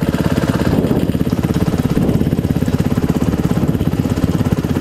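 Honda CRF150R dirt bike's single-cylinder four-stroke engine running at low, steady revs, its firing pulses even throughout.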